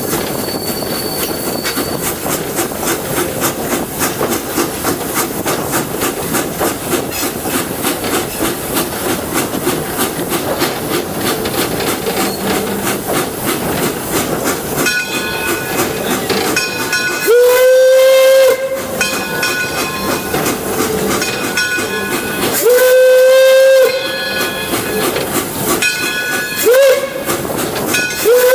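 An 1897 Baldwin steam locomotive under way, a steady running noise with rapid even clicking. From a little past halfway its steam whistle sounds long, long, short, then long, the pattern of a grade-crossing signal.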